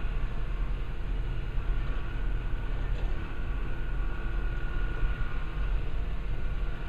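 Engine of a rail-mounted tie-handling machine running as a steady low rumble while its hydraulic boom and grapple move a railroad tie, with a faint tick about three seconds in.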